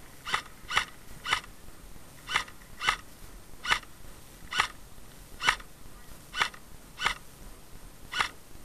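Airsoft rifle fired in single shots, about eleven short sharp cracks at an uneven pace of roughly one or two a second, with two brief pauses.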